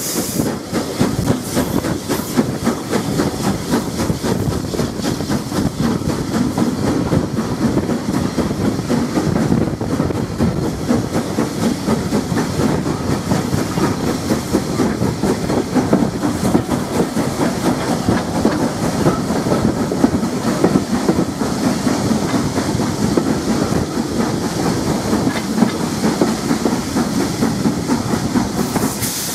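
Southern Railway S15 class 4-6-0 steam locomotive running at speed, heard close up from the engine itself: a steady rumble of wheels on the rails, with rapid clicks over the rail joints and a hiss of steam that grows near the end.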